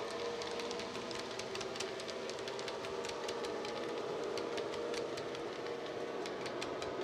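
OO gauge model tank wagons clicking sharply over the track several times a second as they roll past, over the steady drone of the Hattons Class 66's DCC diesel engine sound (SWD sound file on a LokSound decoder) playing through its EM2 speaker.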